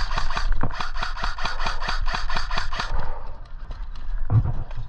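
Fast, even rasping and clattering, several strokes a second, of a player's footsteps and gear rubbing against a head-mounted camera as he moves. It eases off about three seconds in, and a low thump follows near the end.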